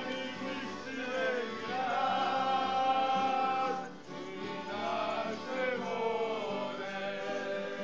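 A group of men singing a song together, several voices holding and bending long sung notes, with a brief drop in level about four seconds in.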